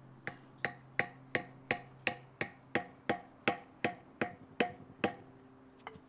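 A wooden baton tapping a Swiss Army knife held on top of a metal tube: about thirteen sharp, evenly spaced knocks, nearly three a second, each with a short metallic ring.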